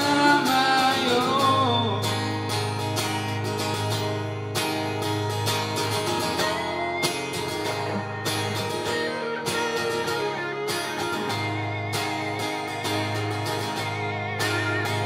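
Live duo of acoustic guitar strumming and electric guitar playing lead lines, with a sung phrase trailing off in the first couple of seconds before the guitars carry on alone.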